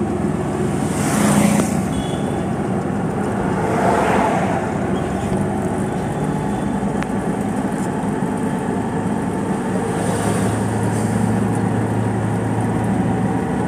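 Steady engine hum and road noise from riding through city traffic in an auto-rickshaw, with two louder swells of passing traffic, about a second and four seconds in.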